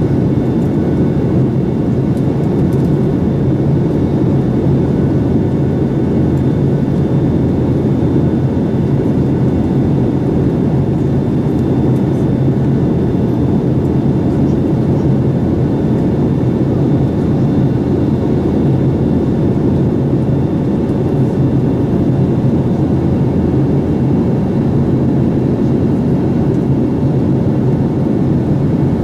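Steady cabin noise inside a Boeing 737-800 in flight: the CFM56-7B jet engines' drone and the rush of air over the fuselage, an even low hum with a few faint steady tones above it.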